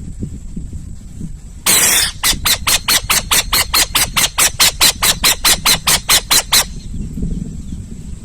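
An owl calling: one harsh, hissing screech, then a rapid run of about twenty short, harsh notes at four to five a second that stops suddenly. A low rumble runs underneath.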